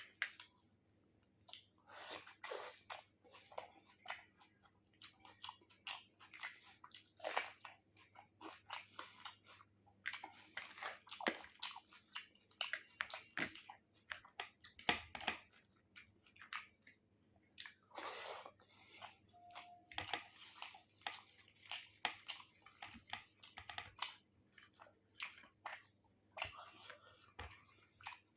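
Close-up chewing and mouth sounds of a person eating chicken curry with rice, heard as a dense, irregular run of short sharp clicks.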